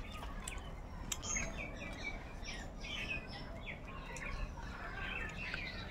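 Birds chirping: many short, high calls, some with quick falling notes, over faint steady background noise.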